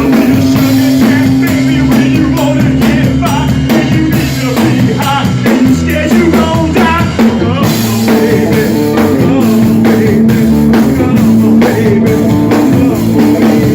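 Live rock band playing an instrumental passage: electric guitar over a steady drum kit beat.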